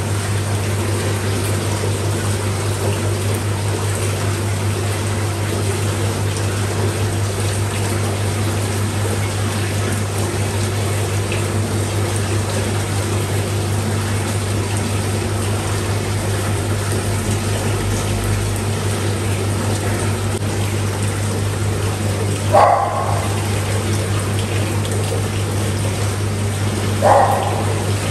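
Aquarium water pumps running with a steady electric hum over a constant wash of moving water. A dog barks twice in short bursts near the end.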